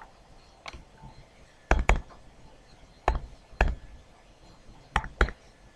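Stylus tapping and knocking on a tablet PC screen while handwriting an equation: about seven sharp, irregular taps, some in quick pairs.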